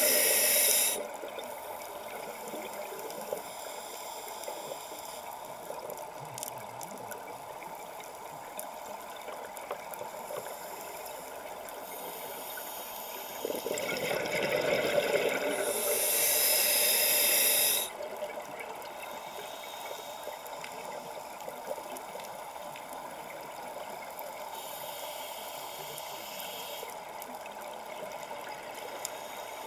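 Scuba diver breathing through a regulator underwater: the tail of one breath and bubble burst at the very start, a long one of about four seconds midway, and a fainter hiss near the end, over a steady background hiss.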